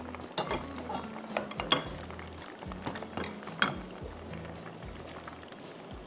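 Spatula clinking and scraping against a pan of chicken frying in hot oil: a handful of sharp knocks, the loudest about one and a half and three and a half seconds in, over a steady sizzle.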